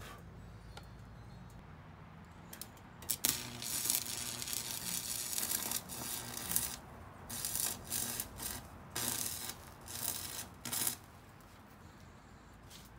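Stick-welding arc from a Campbell Hausfeld 115-volt stick welder burning a 1/16-inch rod on its low setting, crackling and hissing in several bursts with short breaks between, from about two and a half seconds in until about eleven seconds.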